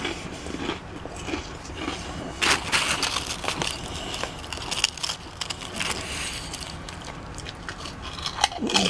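Kettle-cooked potato chips crunching and crackling in irregular bursts as they are picked up and bitten. The bursts are loudest a little over two seconds in and again near the end.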